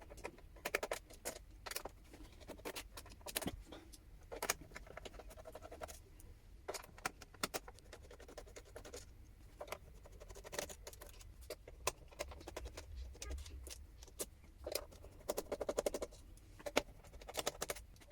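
Small screws being undone from a laptop's plastic bottom case: irregular light clicks and ticks throughout, with a few short buzzy runs around the middle and near the end.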